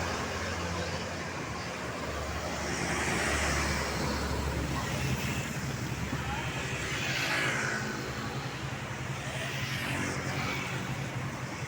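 Road traffic going past: vehicles swelling and fading as they pass, over a steady low engine hum.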